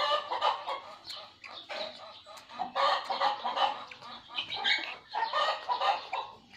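Chickens clucking on and off, loudest at the very start, around three seconds in and again around five to six seconds in.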